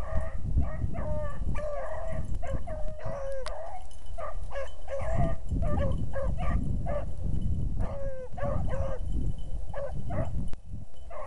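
Beagle hounds baying on a rabbit's scent line: a run of repeated bawls and short chop barks, several a second at times, over a steady low rumble.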